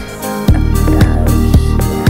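Background music with a steady beat and bass.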